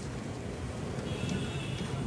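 Steel ladle stirring and scraping thick chickpea masala in a steel kadai, with a few light clinks, over a steady low rumble.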